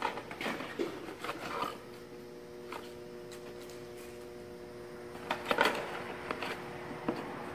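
Cardboard box being handled and opened, rustling and knocking in two short spells: in the first second and a half and again around five and a half seconds in. A steady hum runs underneath.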